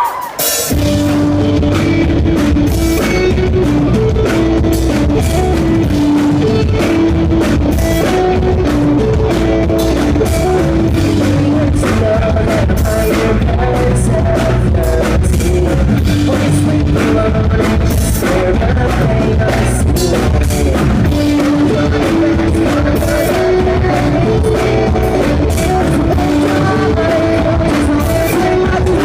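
Pop-punk band playing live and loud on electric guitars and drum kit, the full band kicking in about half a second in and keeping a steady driving beat.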